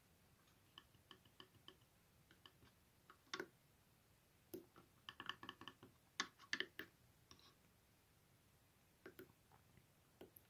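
Faint, irregular clicks and short chirps from a dosimeter circuit board as its tactile menu buttons are pressed, with a quick run of clicks about five to seven seconds in.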